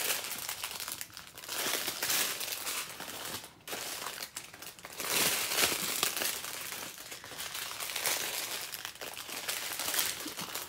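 Small plastic zip bags of diamond-painting drills crinkling and rustling as they are handled and sorted, in irregular bursts.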